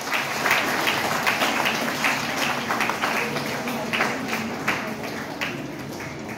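Audience applauding, many hands clapping at once, the clapping slowly thinning out toward the end.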